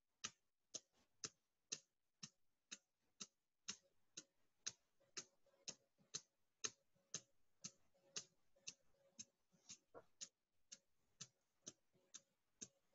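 Faint, steady rhythmic tapping of hands, about two taps a second, as the inner sides of the thumbs are struck against each other.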